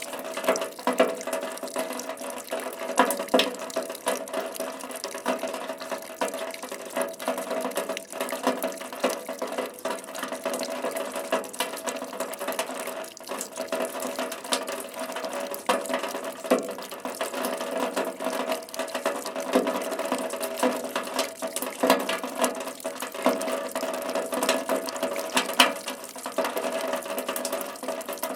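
Rain falling steadily, with many distinct drop hits scattered irregularly through a constant wash of water noise.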